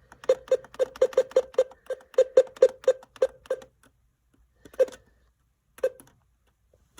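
Alert Works EAR-10 weather radio beeping on each button press as its clock is set: a quick run of about fourteen short identical beeps, about four a second, then two single beeps a second apart.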